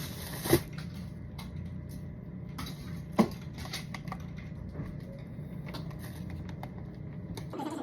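Scattered small clicks and taps of handling things at a desk, with two louder knocks, one about half a second in and one about three seconds in, over a low steady hum.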